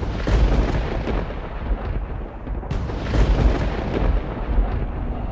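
Intro sound effect of a continuous deep rumble with booming hits, like thunder, and a sharp crack about two and a half seconds in.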